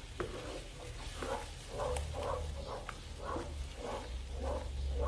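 A plastic spatula scraping and stirring red curry paste and coconut milk around a hot wok, in quick repeated strokes about two to three a second from about a second in, over a light sizzle.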